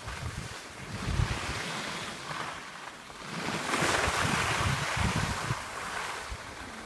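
Skis hissing over groomed snow, with wind buffeting the microphone. The hiss grows louder for a couple of seconds in the middle.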